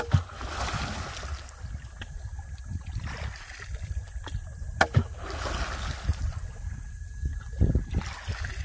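Water sloshing and splashing around a small fishing boat, with a few sharp knocks against the boat, over a steady low rumble.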